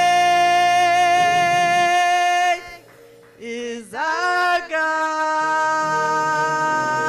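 Church worship music with singing: a long, steady held chord. It breaks off about two and a half seconds in, and after a brief rising note a second held chord carries on.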